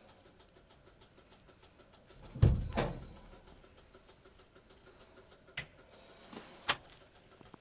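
Two dull thumps close together about two and a half seconds in, then three short knocks later on, the last one sharp.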